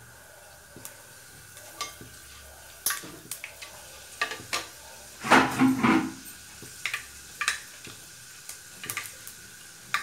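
Cumin and fenugreek seeds frying in hot oil in an aluminium kadai: a steady sizzle with scattered sharp pops and crackles. A louder cluster of knocks comes about five seconds in.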